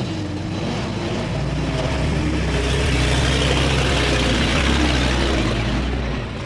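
Heavy diesel engine of earth-moving machinery running hard, a steady low drone that grows louder over the first few seconds and then cuts off abruptly near the end.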